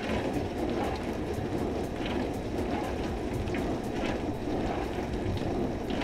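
A dishwasher running in a kitchen: a steady whoosh of water spraying inside the tub, with faint light ticks.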